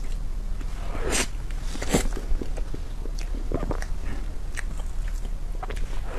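Close-miked mouth sounds of eating soft cream cake from a spoon: wet smacks and chewing clicks at uneven intervals, the strongest about one and two seconds in.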